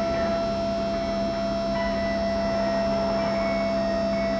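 Electric tailgate lift of a Baiyi-L8 mini garbage truck running as its platform raises two wheelie bins: a steady motor hum with a held whine above it.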